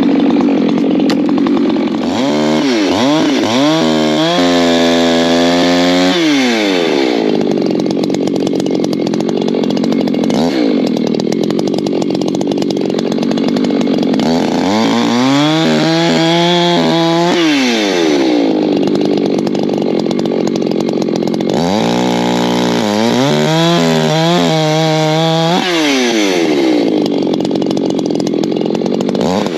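Echo gas chainsaw running at full throttle through cuts in oak firewood logs. Three times the engine drops back to a low idle for a few seconds, then revs up again.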